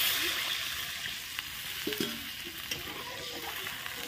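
Water poured into hot oil and fried lentils in an iron kadai, hissing loudly at first and slowly dying down to a simmering sizzle, with a few light clicks.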